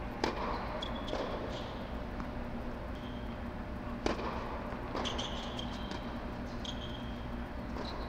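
Tennis racket striking the ball in sharp single hits: one just after the start, the hardest on a serve about four seconds in, and another about a second later. Between them come short high squeaks of tennis shoes on the court.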